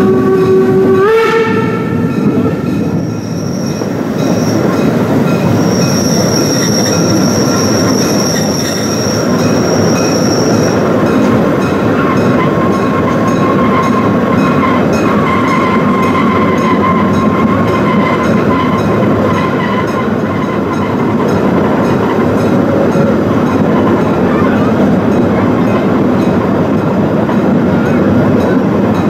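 Narrow-gauge steam train running, heard from an open wagon within the train: a steady rumble and rattle of wheels and wagons. High-pitched wheel squeal comes and goes as the train takes a curve. In the first two seconds a sustained whistle-like note steps up in pitch and then stops.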